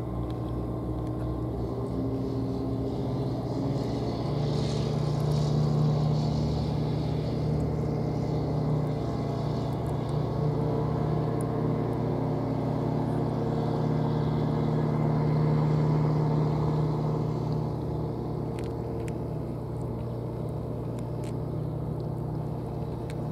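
An engine running steadily, a low drone whose pitch steps up a little in the first few seconds and that swells slightly twice.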